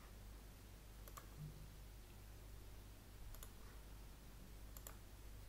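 Faint computer mouse clicks over a low steady hum of room tone: one click about a second in, then two quick double clicks near three and a half and five seconds.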